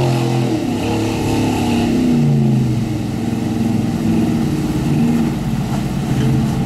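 The engine of a monster truck/boat running and revving, its pitch falling and rising several times.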